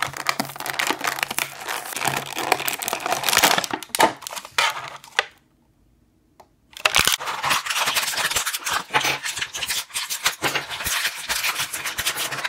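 Cardboard box and plastic packaging of a Beyblade Burst dual pack being torn open and crinkled, a steady rustling dotted with sharp clicks and snaps. It cuts out abruptly a little under halfway through, then resumes.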